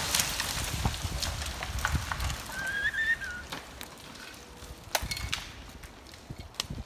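The dying rumble of a felled beech settling onto the forest floor. It gives way to scattered cracks and knocks of twigs and branches, with a short wavering bird call about three seconds in.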